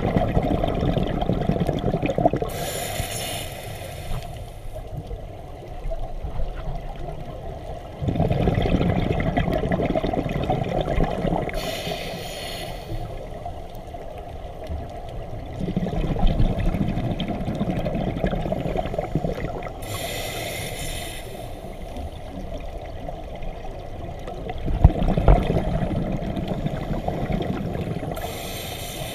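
A scuba diver's regulator breathing underwater, heard through the camera housing: four breaths about eight seconds apart, each a short high hiss of inhalation and a longer, louder gush of exhaled bubbles.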